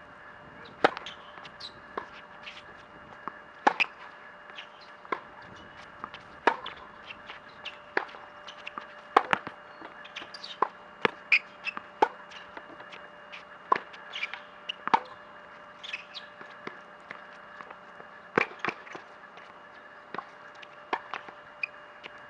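Tennis rally on an outdoor hard court: a serve, then groundstrokes back and forth. The ball pops off the strings and bounces off the court as a run of sharp clicks about every second, the loudest about a second in.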